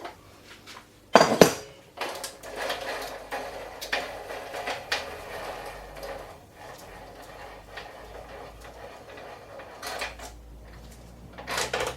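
Metal bicycle tools and headset parts clinking and clattering as they are handled, with one loud metallic clank about a second in and more clatter near the end.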